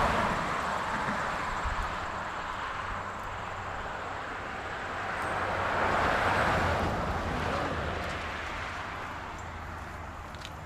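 Cars passing by on the road, their tyre and engine noise swelling and fading: one vehicle going away at the start and another rising and passing about six seconds in, over a steady low traffic hum.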